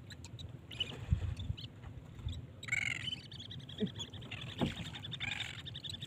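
A flock of seabirds calling over open water: a few scattered calls at first, then a busier run of chattering calls from about halfway through. It is a feeding flock over a school of tuna.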